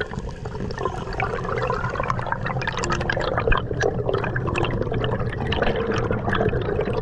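Underwater bubbling and rushing water, full of small clicks and crackles, as a diver swims up through the water.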